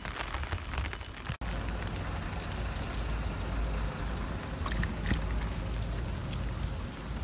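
Steady rain hiss with wind rumbling on the microphone while riding a bicycle over wet asphalt, with a short break about a second and a half in and a couple of light knocks about five seconds in.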